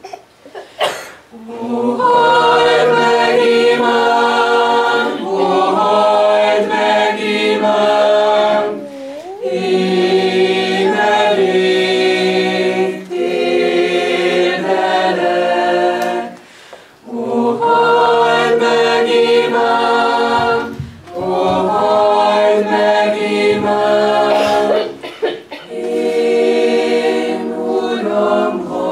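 Mixed choir of men's and women's voices singing a sacred song a cappella, in long phrases with short breaks between them.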